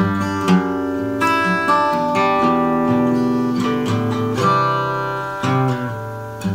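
Acoustic guitar strumming chords that are left to ring, with several chord changes.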